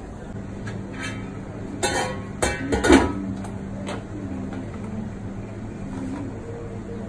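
Metal clanks and clatter as the stainless steel lid comes off a stockpot and tongs knock against it, a cluster of knocks about two to three seconds in, the loudest near three seconds. Under it runs a steady mechanical hum.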